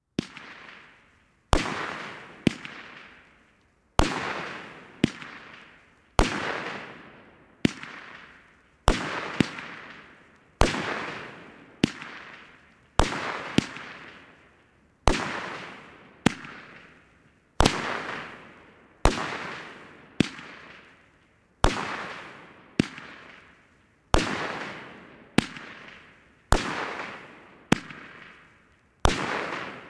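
Nico 5049 Gun Powder, a 20-shot category II firework cake, firing shot after shot of breaking bouquet shells with golden tails. It gives sharp bangs about once a second, some close together in pairs, and each dies away over about a second.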